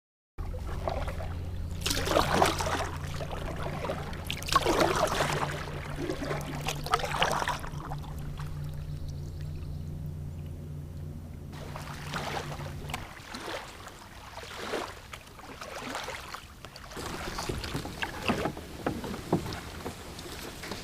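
Water swishing and splashing around a kayak in uneven strokes. A steady low hum runs under it and cuts off about 13 seconds in.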